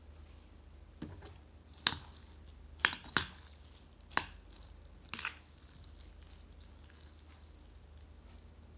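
Utensils clinking and tapping against a bowl of vermicelli soup: about six sharp clicks in four seconds, two close together near the middle, over a faint steady low hum.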